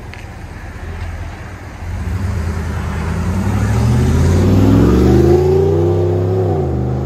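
A 2019 Ram 1500's 5.7-litre Hemi V8 accelerating away through a Flowmaster Super 44 muffler and dual exhaust. The engine note rises steadily in pitch and loudness, then drops with a gear change near the end.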